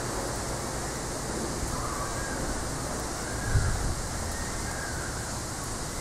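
Steady outdoor background noise with no distinct event, and a brief low rumble of wind on the microphone about three and a half seconds in.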